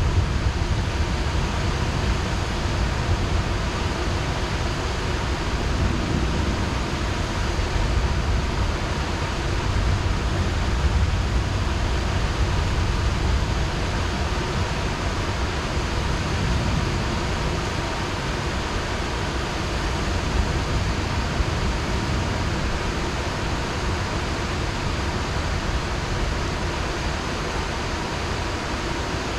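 Heavy rain falling in a steady, even hiss, with a low rumble underneath.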